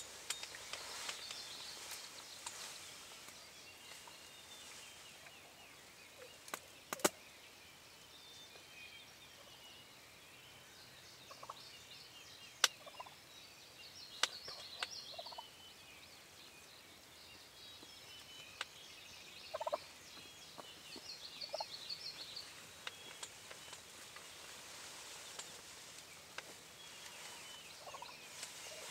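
Distant wild turkey gobbling several times, each gobble a short rattling burst, over faint outdoor ambience. A few sharp clicks stand out, the loudest about seven seconds in.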